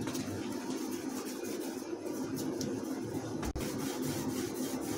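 Soft handling noises of fingers pinching chhena dough into small pieces and setting them on a steel plate, over a steady low background hum.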